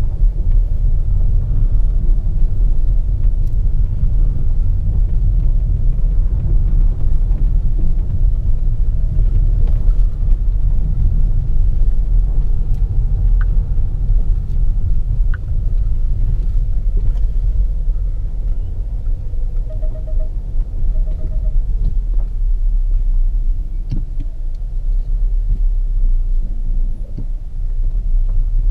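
Volvo XC40 T5 with its 2.0-litre turbo four-cylinder petrol engine driving, a steady low rumble of the car in motion with a few sharp knocks. Two short pulsed beeps sound about two-thirds of the way through.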